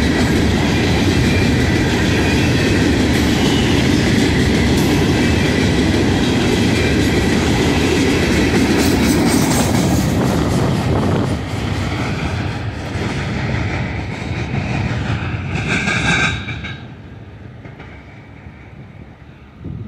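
Herzog freight train's hopper cars rolling past on the rails with a loud clickety-clack of wheels. It drops off about eleven seconds in as the last car goes by and the train pulls away. Near sixteen seconds there is a brief high-pitched squeal, then the train noise fades to a low rumble.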